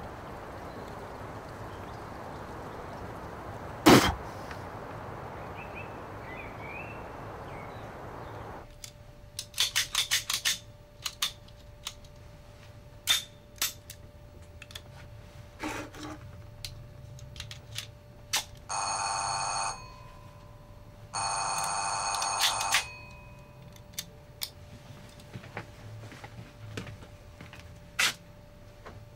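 A rotary telephone's bell rings twice, each ring lasting a second or so, well over halfway through. Before the rings there is a sharp knock and a quick run of clicks, and scattered knocks follow them.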